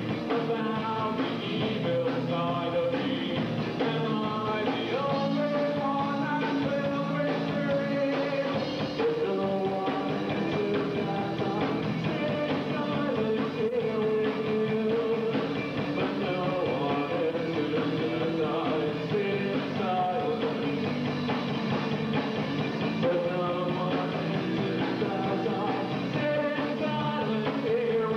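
A rock band playing live, with a singer's voice over the band.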